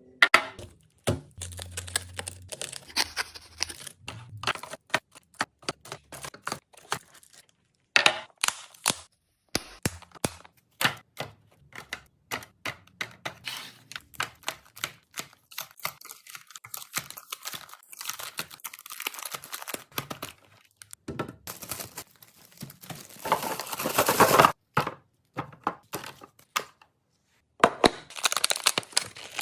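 Plastic packaging crinkling and tearing, with frequent sharp clicks and knocks of items and plastic containers being handled and set down, heard in several short clips with brief silent gaps between them.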